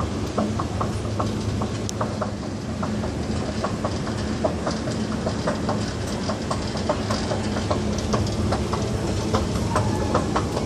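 Escalator running: a steady low machinery hum with rapid clicking and rattling from the moving steps, about three or four clicks a second.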